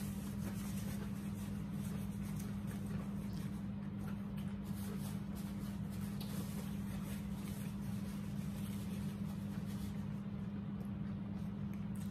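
A steady low hum, with faint scattered rustles and small clicks of people eating and handling paper napkins.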